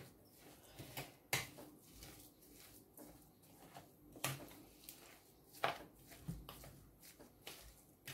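Metal spoon stirring a thick, chunky food mix in a glass bowl: quiet scrapes with a few sharp clinks of the spoon against the glass, spaced a second or more apart.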